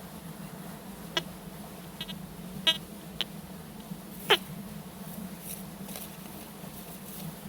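TX-850 metal detector running with a steady low hum, with five short, sharp chirps; the loudest is a quick falling one about four seconds in.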